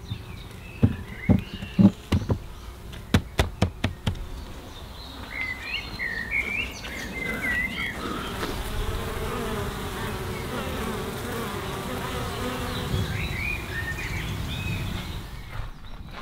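Honeybees buzzing in a steady hum around a hive that has just been opened and given an extra box. In the first few seconds a series of sharp wooden knocks sounds as the hive lid is settled in place.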